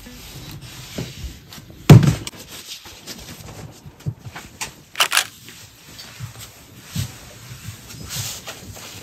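Clothes being handled and packed into a suitcase: scattered fabric rustles and soft knocks, with one loud thump about two seconds in and a sharper rustle about five seconds in.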